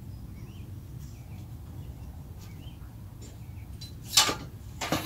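Steel aerator parts being handled during assembly: a steady low hum with faint bird chirps, then a sharp metal clank about four seconds in and a smaller knock just before the end.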